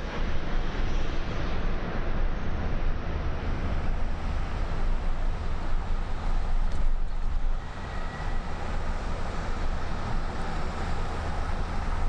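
A vehicle driving along a city street: a steady low rumble of engine and road noise. A faint high thin tone comes in about two-thirds of the way through.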